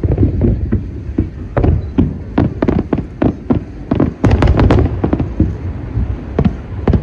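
Aerial fireworks shells bursting in quick, irregular succession: a steady run of booms and sharp cracks, densest about four seconds in.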